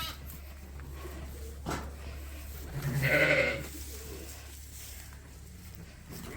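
A sheep bleating once, a single call a little under a second long about three seconds in, with a short knock shortly before it and a steady low hum underneath.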